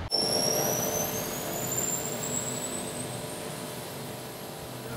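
Sydney electric train's traction motors whining as the train gathers speed, a high whine rising steadily in pitch over a low running rumble.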